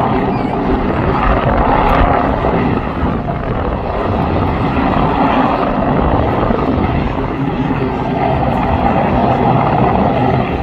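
Westland Sea King helicopter hovering, its rotors and engines running steadily.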